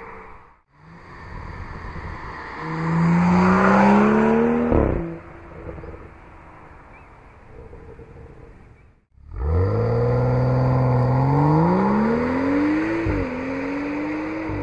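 BMW M235i's turbocharged inline-six through a Tuningwerk rear silencer, accelerating hard in two short takes. Its note rises in pitch each time, with a quick dip at a gear change in the second.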